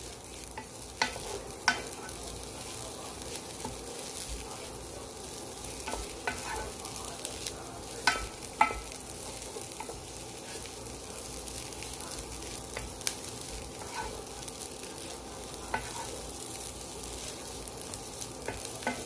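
Fried rice sizzling in a coated pot while a wooden spatula stirs and scrapes through it, with a few sharp clicks of the spatula against the pot at irregular moments.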